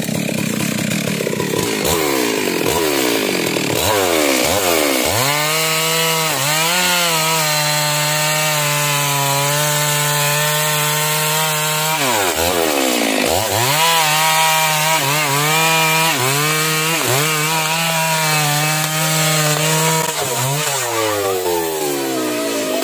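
Stihl MS 382 two-stroke chainsaw revving up, then cutting into a jabon tree trunk at full throttle to make the felling notch, with a short drop in revs midway. The revs fall away near the end.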